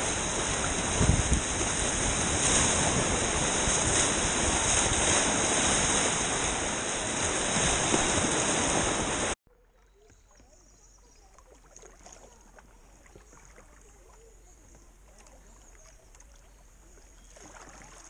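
Whitewater rapids rushing loudly around a kayak. The noise cuts off suddenly about nine seconds in, leaving only the faint sound of calm, flat river water.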